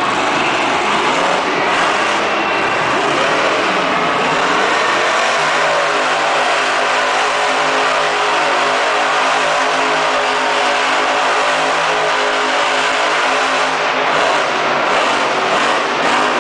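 Grave Digger monster truck's supercharged V8 engine revving hard as the truck turns on the dirt. It is uneven for the first few seconds, holds steady revs from about five seconds in, and rises and falls again near the end.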